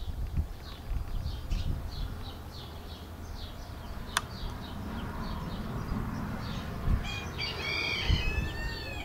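Outdoor animal calls: a steady run of short, high chirps, about two or three a second, then near the end a longer warbling call with several arching notes. A low rumble of wind or handling on the microphone lies underneath.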